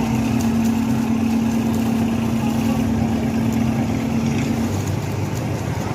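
An engine running steadily with a low rumble. A steady hum sounds over it and cuts off about four and a half seconds in.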